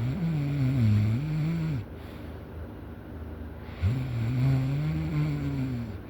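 Loud snoring from a sleeper: two long snores, each about two seconds, with a pitch that wavers up and down, about two seconds apart.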